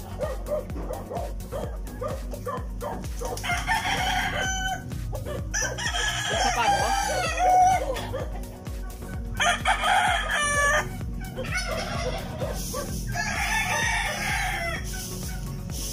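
Roosters crowing, four long crows a few seconds apart.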